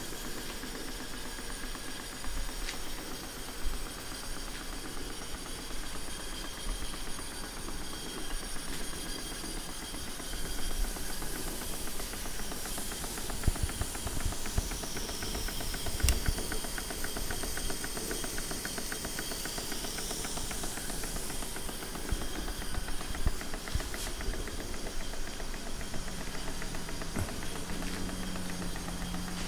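Model live-steam plant running on steam: steady hissing steam with the fast, even beat of small Stuart steam engines. The hiss grows louder through the middle stretch.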